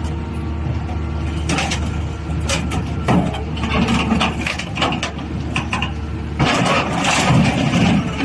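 Small eagle-beak (alligator) scrap shear running with a steady low hum, with scattered metal knocks and clanks. Near the end comes a louder stretch of metal noise lasting over a second.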